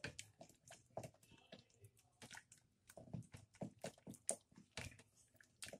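A wooden spoon mashing soft cooked lentils and tomatoes against the inside of an aluminium pressure-cooker pot, making quick, irregular soft taps and squelches. The cooked dal and tomatoes are being crushed so they dissolve into the curry base.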